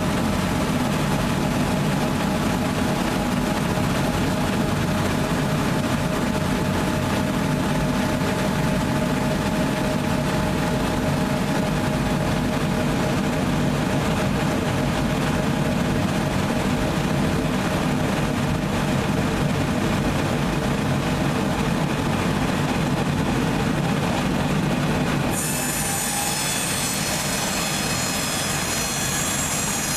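Lister PK diesel generator engine running steadily, a loud continuous drone. About 25 seconds in the sound changes abruptly to a slightly quieter run with a high whine on top.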